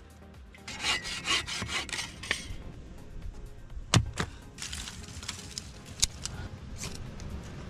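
Wood being cut with a hand saw: a quick run of strokes, then a few sharp knocks of wood.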